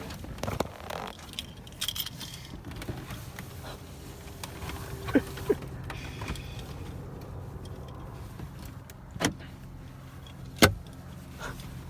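Car cabin: a steady low engine and road hum, with scattered sharp clicks and metallic jingling. The loudest clicks come about five seconds in and again near nine and eleven seconds.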